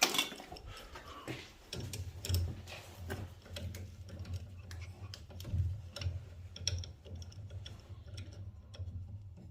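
Combi boiler running with a low hum that comes on about two seconds in, with light ticks and clicks scattered throughout.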